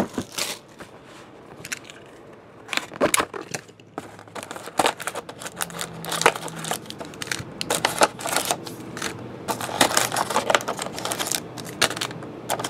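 A hobby box of 2012 Panini Playbook football cards being opened by hand, its foil packs pulled out and stacked: irregular rustling and crinkling of wrappers and cardboard with soft taps.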